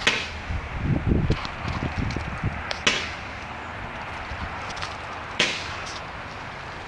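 Fireworks going off: sharp cracks right at the start, about three seconds in and about five and a half seconds in, with fainter pops between, over a steady background hiss. There is low rumbling in the first half.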